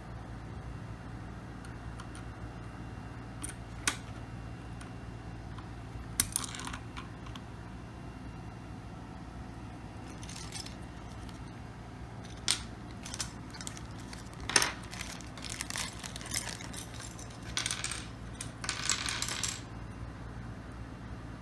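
Scattered sharp clicks and light clatter of small hard objects being handled on a desk, irregular and not a typing rhythm, with a few short rustles, busiest near the end. A low steady hum runs underneath.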